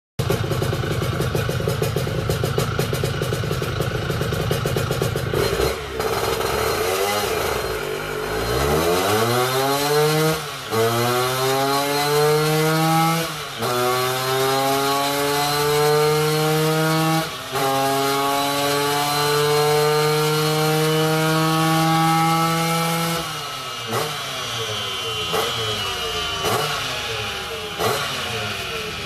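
Two-stroke Vespa scooter engine with a VMC GS125 cylinder kit and Superbanana Touring exhaust, making a full-throttle power run on a roller dyno. It runs at a rough idle, then pulls up through the gears, its pitch climbing in each gear with three gear changes. About three quarters through the throttle closes and it drops back to uneven, popping running.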